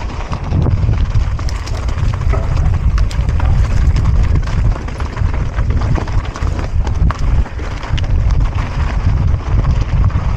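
Mountain bike riding a rough dirt trail: tyres rumbling over the ground and wind buffeting the microphone, with scattered clicks and knocks.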